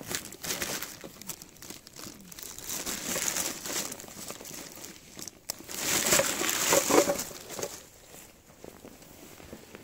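Thin plastic shopping bag crinkling and rustling as it is cut with scissors and pulled free, in three bursts, the loudest about six to seven seconds in.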